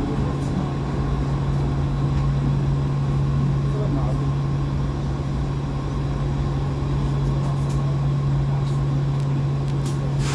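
Interior of a Vienna U-Bahn Type U2 subway car standing at a station: a steady low hum from the train's onboard equipment, with a few faint clicks and a murmur of voices.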